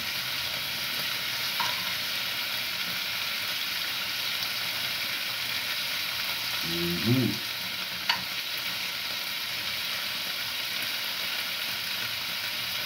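Chunks of meat sizzling steadily as they fry in a pan, stirred with a metal spoon, with a couple of light clicks of the spoon against the pan. A brief vocal sound from the cook about seven seconds in.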